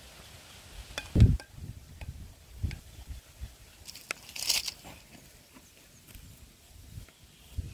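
Cooking handling noises: a heavy dull thump about a second in and a softer knock near three seconds from a pot being worked with a plastic rice paddle, then a brief hissing scrape a little past halfway.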